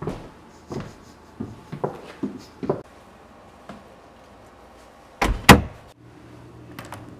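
A wooden interior door being pushed shut with two loud bangs about five seconds in, then light clicks of a brass deadbolt being turned to lock it. Several light knocks come first.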